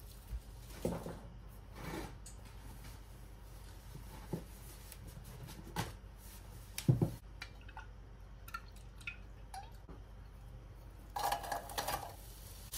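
Scattered light knocks and clicks of kitchen handling on the counter and stovetop, the loudest about seven seconds in. Near the end, diced onions are tipped from a glass bowl into a pot with oil, making a short run of patters.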